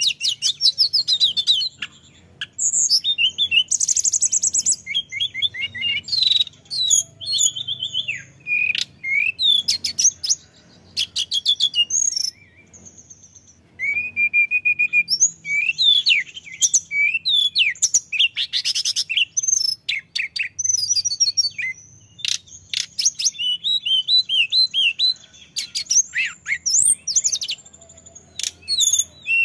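Male hill blue flycatcher singing continuously: a long stream of varied high whistled phrases mixed with fast runs of rapidly repeated notes, with a short pause near the middle.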